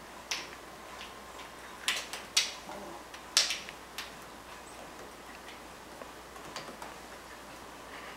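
Scattered sharp clicks and taps of a squirrel's claws on a hard tile floor as it leaps and scrabbles after a peanut on a string, bunched in the first four seconds and fainter after.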